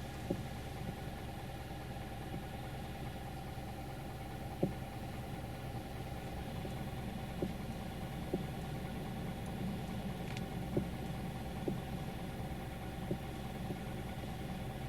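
Mazda CX-3 engine idling steadily, with a few faint, irregular clicks from the steering column as it catches and lets go while the wheel is turned slowly. This binding is typical of insufficient or deteriorated grease in the steering shaft.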